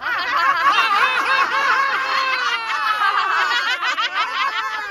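A group of adults laughing together, many voices overlapping at once.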